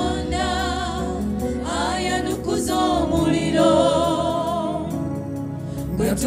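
Gospel worship song: voices hold long notes with a wide vibrato and glide between pitches over a steady low instrumental backing.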